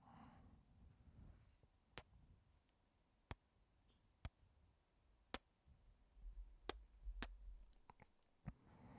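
Close-miked ASMR kisses: a soft breath, then about seven short, sharp lip smacks, spaced roughly a second apart.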